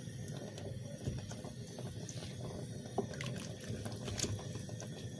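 A spoon stirring chunks of vegetables in water in a steel pot: soft, low sloshing with a few light clicks of the spoon against the pot.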